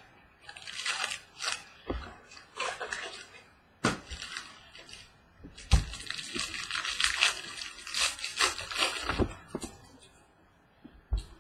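Trading card pack wrapper crinkling as it is torn open, and cards rustling as they are handled, with a few soft knocks on the table.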